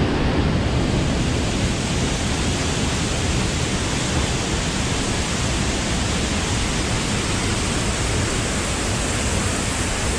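Small waterfall's falling water, a steady, even rush.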